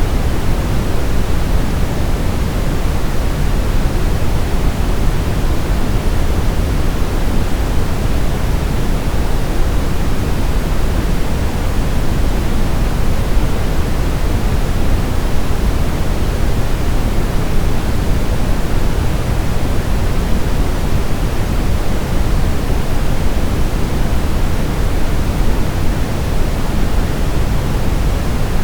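Steady brown noise: an even, deep rushing hiss, strongest in the low end and falling off toward the highs, unchanging throughout.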